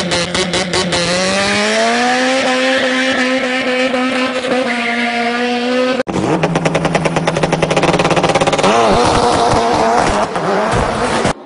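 Motor engine revving: its pitch climbs and then holds. After a sudden break about six seconds in, an engine runs with a fast, even throb and cuts off abruptly near the end.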